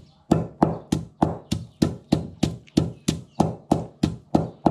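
Steady rhythmic chopping of northern Thai chili-paste ingredients, about three and a half sharp, heavy strikes a second.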